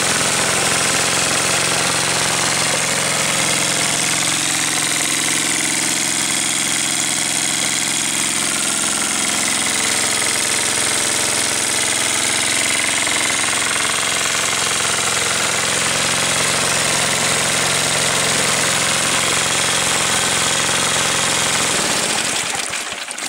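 A small gas engine runs steadily, driving a Homart 1½-inch water pump, with water gushing from the outlet pipe into the tub. The engine shuts off near the end.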